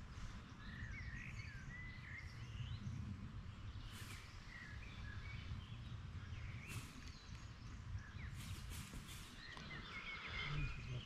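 Small birds chirping and calling faintly in short, repeated phrases over a steady low outdoor rumble, with a few faint clicks.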